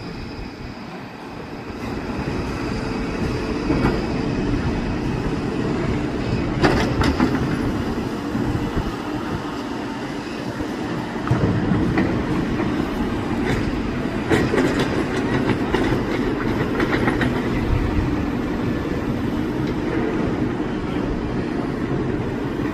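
Tracked excavators' diesel engines running under load, with scattered clanks and rattles from the machines working; the engine noise grows louder about two seconds in.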